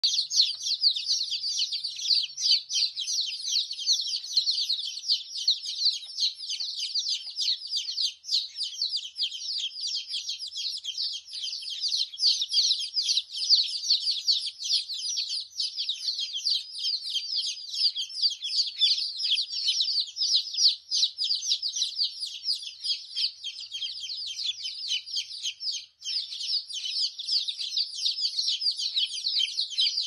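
Cattle egret chicks chattering in the nest: a dense, unbroken stream of rapid, high-pitched calls.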